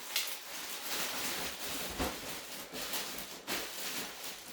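Plastic packaging crinkling and rustling in the hands as accessories are taken out of a bag, with a few soft irregular knocks.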